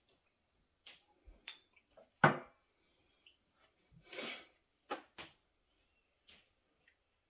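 A few small knocks and clinks of glassware being handled: a whisky tasting glass set down on a glass tabletop, the sharpest knock about two seconds in, then a whisky bottle taken hold of and lifted, with a couple of light clicks. A brief rushing sound comes about four seconds in.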